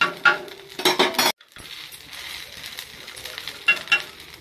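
Steel spatula scraping and clinking against a dosa tawa while a rava roast fries, with a steady sizzle underneath. The clinks come in a cluster in the first second or so and twice more near the end, and the sound cuts out for a moment just over a second in.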